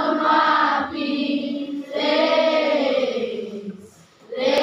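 Voices singing a chant-like song in long held phrases, one of them sliding down in pitch, with a short break near the end.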